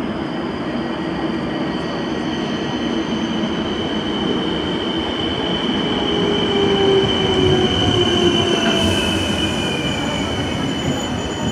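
ŁKA electric multiple unit arriving at a platform and slowing: a high steady squeal with motor whines falling in pitch as it slows. Loudest as it draws alongside about seven seconds in.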